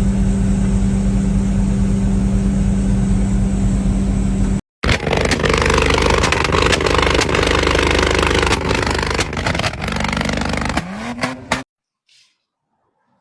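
A motor engine running with a steady drone. After a short break it gives way to a louder, noisier clattering machine sound, and the pitch rises briefly before the sound cuts off suddenly.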